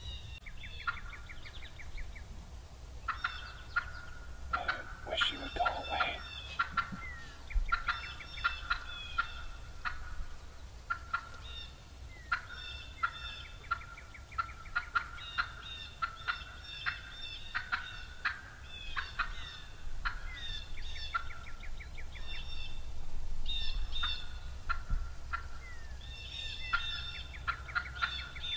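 Wild turkey hen cutting: runs of short, sharp, irregular clucks, excited and nearly continuous, with a deeper call briefly about five seconds in.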